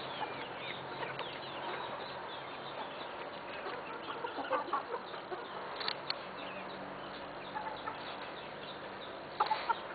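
A flock of Aseel chickens clucking, with many short high chirps throughout and a few louder clucks about four to five seconds in and again near the end.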